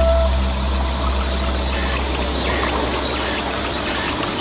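Shallow stream water running over stones, with a low steady hum that stops near the end. A short, high, rapid call of about five pulses repeats roughly every two seconds.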